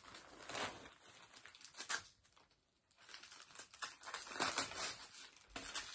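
Plastic shopping bag and small product packaging rustling and crinkling as they are handled, in short scattered bursts with a quiet gap about two seconds in.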